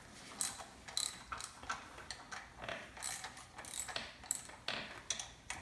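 Hand ratchet wrench clicking in short irregular strokes, loosening the rocker arm shaft nuts on a VW 1600 dual-port engine's cylinder head, with the rocker arms still under valve spring tension.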